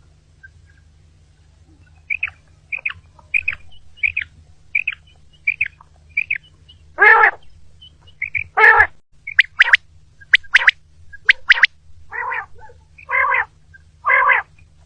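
Common quail calling: a series of short, evenly spaced call notes starts about two seconds in, then gives way to louder, fuller calls mixed with a few sharp high notes.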